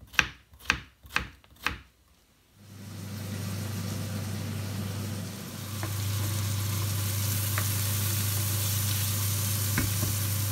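Kitchen knife slicing courgette on a wooden chopping board: four cuts, about two a second. After a brief gap, diced onion frying in oil in a pan, a steady sizzle with a low hum beneath it.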